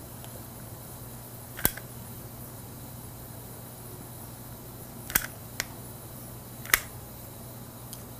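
Dispensing gun for polyvinyl siloxane bite registration material clicking as its trigger is squeezed to push the material through an auto-mix tip: about five sharp clicks at uneven intervals over a steady low hum.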